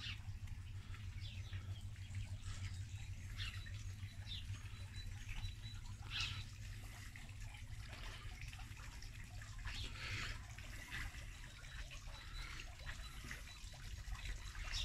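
Water trickling and splashing from a tiered garden fountain into its basin, with a few bird chirps and a steady low rumble underneath.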